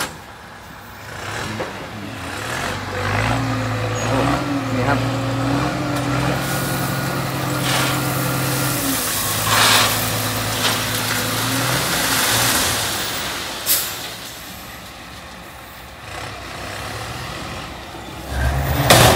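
Ten-wheel dump truck's diesel engine held at a steady raised speed to work the hydraulic hoist as the bed tips up, with the rock load sliding out and pouring onto the ground. A sharp knock about 14 seconds in and a heavy thump near the end.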